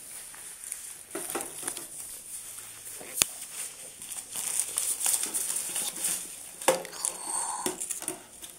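Crinkling of a foil booster-pack wrapper and rustling of trading cards being handled, with a sharp click about three seconds in.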